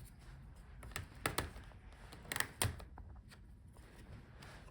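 Several sharp clicks and taps of small plastic parts as the laptop's internal speakers are unclipped and lifted out of the chassis. They are loudest in the first half, then the clicking tails off.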